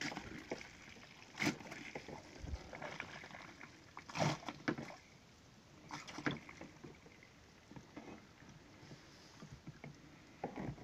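Water being bailed out of an aquarium with a plastic jug: a few irregular splashes and knocks of the jug, with quieter stretches between them.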